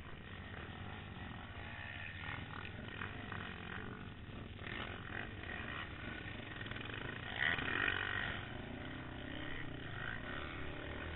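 Quad bike (ATV) engine running and revving under load as it is raced over rough dirt, heard close from a camera mounted on the machine itself, with a louder, harsher stretch about seven to eight seconds in.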